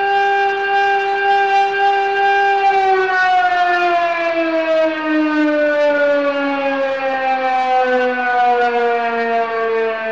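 Film-score music: one long sustained note with many overtones, held steady for about three seconds and then sliding slowly down in pitch until the end.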